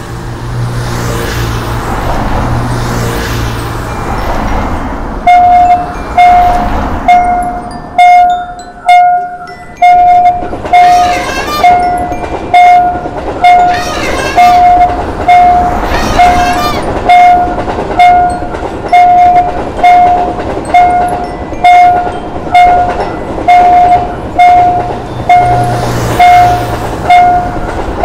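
Railroad crossing warning bell dinging steadily, about three dings every two seconds, starting about five seconds in. Before the bell starts there is road traffic, and through the middle a train runs past with its horn sounding.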